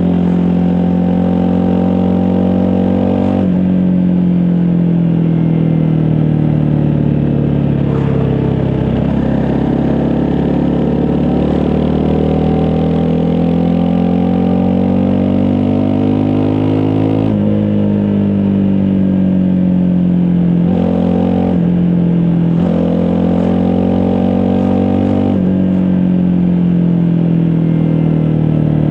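Honda CRF250 Rally single-cylinder four-stroke engine under way on a dual-sport motorcycle. Its pitch climbs and sinks with the throttle, with several sudden steps as gears change.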